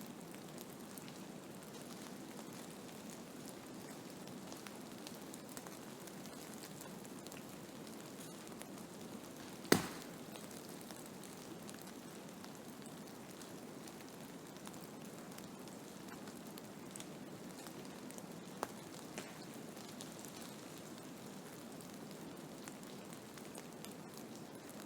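Blizzard: a steady, low hiss of wind-driven snow with faint scattered ticking. One sharp click stands out about ten seconds in, and two small ticks come near the nineteen-second mark.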